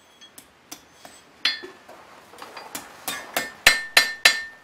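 Blacksmith's hand hammer striking a punch and hot iron on the anvil while hot punching a hole through an iron hook. A few light taps come first, then from about halfway a faster run of harder ringing blows, about three a second, the loudest near the end.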